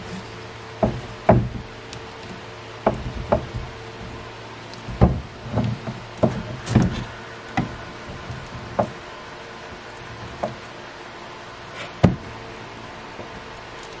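Uncapping a wooden honey frame with a long serrated knife over a plastic tote: a dozen or so irregular knocks and thumps as the blade, the frame and the bin bump together, the loudest about a second in, near the middle and near the end.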